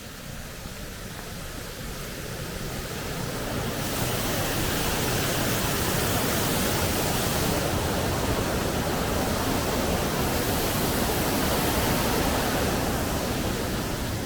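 A steady rushing noise that swells over the first few seconds, holds loud, and eases off near the end.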